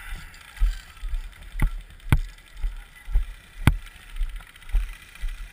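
Footsteps on grass heard through a body-worn action camera as low thumps about twice a second, with gear rattling at each step. Three sharp clicks come near the middle.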